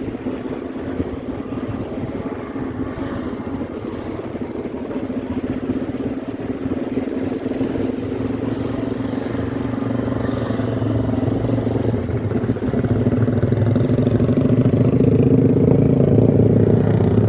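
An engine running with a steady hum that grows gradually louder, loudest in the last few seconds.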